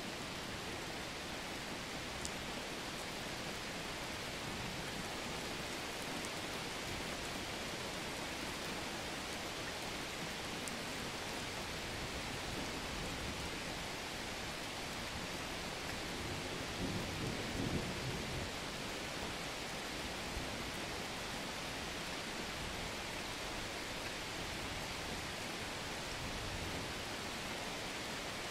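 Mountain ambience sound effect: a steady, even outdoor hiss, with a brief low rumble about two-thirds of the way through.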